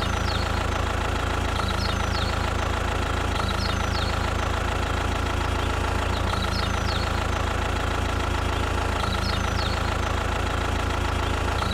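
Steady engine idling at an even pitch and level, with birds chirping in short falling notes at intervals.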